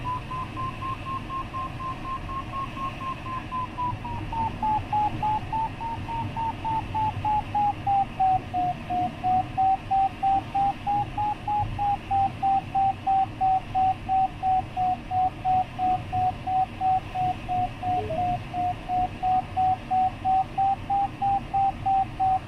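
A glider's electronic variometer beeping in quick, even pulses of about three a second, over a faint steady rush of air. This beeping signals that the glider is climbing while it circles in a thermal. The tone sits a little higher at first, then settles lower and steady as the beeps grow sharper.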